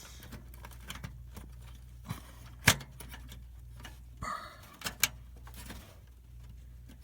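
Scattered clicks and knocks of computer parts being handled and pushed into place, the sharpest about two and a half seconds in, over a low steady hum.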